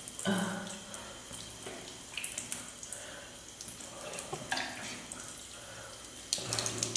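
Tap running into a bathroom sink while water is cupped in the hands and splashed onto the face, with drips and small splashes. A brief low hum sounds just after the start and again near the end.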